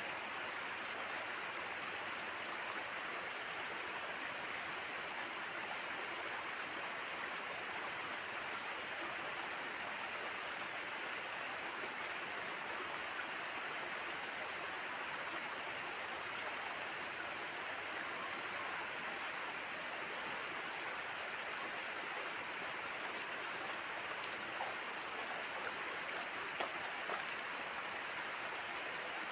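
Steady, even rushing hiss of outdoor background noise, with a few faint clicks near the end.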